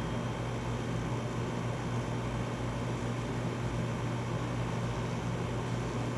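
Air-conditioning unit running: a steady low hum with an even hiss, over an uneven low rumble.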